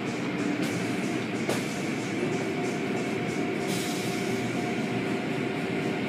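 Car wash machinery running steadily, a continuous rumble and hiss with a constant hum. There is a single sharp click about a second and a half in and a brief surge of hiss a little before the four-second mark.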